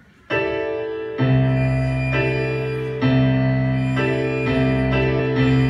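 Piano playing the opening accompaniment: sustained chords struck one after another, the first a moment in, with new chords coming faster toward the end.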